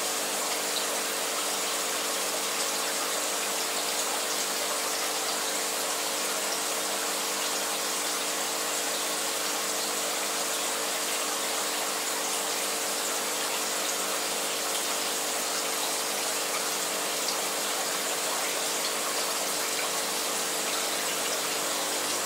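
Aquarium filter and pump running: a steady rush of moving water with a constant hum underneath.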